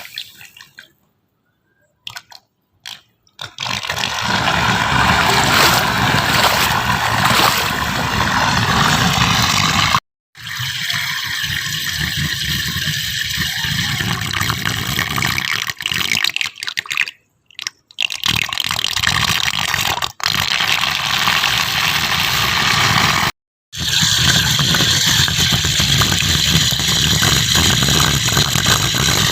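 Steady rushing, running water in several separate clips joined by short silent gaps. The gaps fall near the start, at about ten seconds, around seventeen seconds and at about twenty-three seconds.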